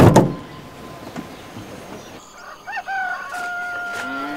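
A van door slams shut at the start. About three seconds in, a rooster crows, ending in one long held note, and a cow starts to moo right at the end.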